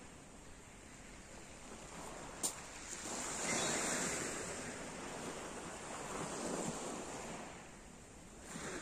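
Small waves breaking and washing up a pebble beach, the wash swelling about three seconds in and again later, with some wind on the microphone. A single sharp click sounds about two and a half seconds in.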